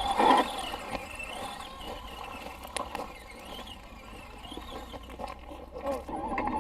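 Electric motor and gear whine of a radio-controlled scale rock crawler, rising and falling in pitch as the throttle is worked, with a short louder noise right at the start.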